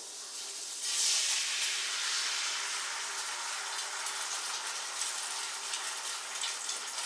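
Egg whites sizzling as they hit a hot, buttered Copper Chef 10-inch nonstick frying pan. The hiss starts suddenly about a second in and slowly dies down.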